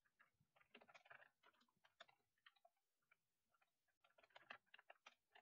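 Faint computer keyboard typing: a quick run of key clicks, pausing briefly about three seconds in before starting again.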